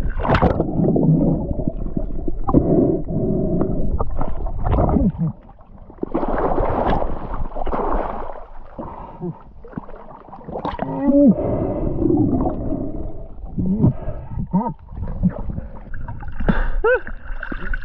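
Water splashing and gurgling in irregular bursts as a large speared fish thrashes at the surface, the camera at the waterline dipping in and out of the water.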